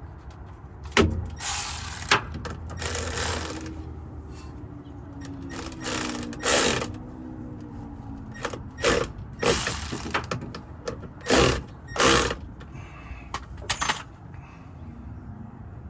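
Ratchet wrench clicking in repeated short bursts, about nine strokes with pauses between, as a bolt is worked down.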